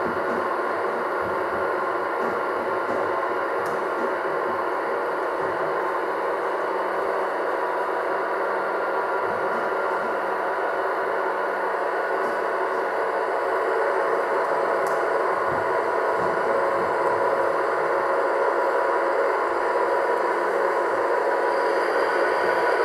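Gauge 1 model train rolling along the track: a steady running rumble and rattle of wheels and running gear, growing a little louder about two-thirds of the way through as the locomotive draws near.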